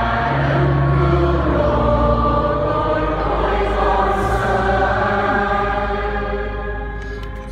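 Choir singing a hymn, voices held in long sustained chords that change every second or so.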